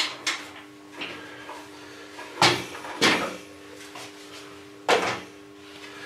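Wooden knocks and clatter as boards and the wooden birdhouse box are moved and set down on a workbench: about five separate knocks, the loudest about two and a half and five seconds in, over a faint steady hum.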